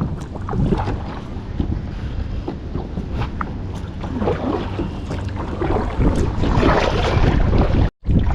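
Wind buffeting the microphone over water lapping and splashing around a kayak; the sound cuts out completely for a moment near the end.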